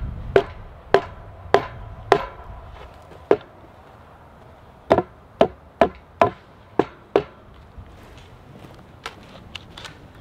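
Sharp blows on wood, struck in uneven runs: four about half a second apart, a lone one, then six in quick succession, then a few fainter taps near the end.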